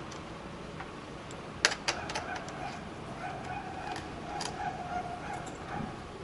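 Small sharp metal clicks of a screwdriver working on the laptop's screen-hinge screws: two close together a couple of seconds in and another past the middle. A faint wavering whine sounds in the background between about three and five seconds in.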